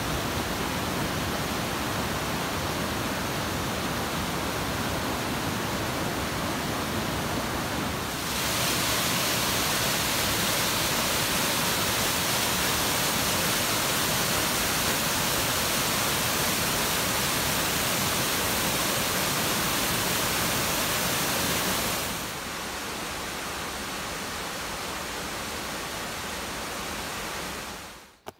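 Rushing water: a steady, even roar of a waterfall or fast mountain stream. It gets louder about eight seconds in, drops back about twenty-two seconds in, and fades out at the very end.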